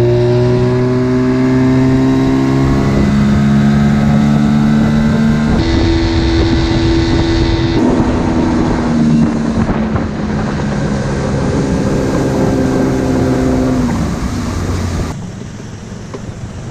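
Mercury tiller outboard motor running at speed, pushing a small aluminium boat. Its steady note climbs a little at first, shifts a few times, then falls as the throttle is eased about fourteen seconds in, and the sound turns quieter shortly after.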